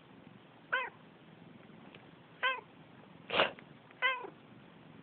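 A domestic cat answering with three short, pitched meows. Just before the last meow comes a louder, sharp noisy burst, a person's sneeze, which the cat meows back at.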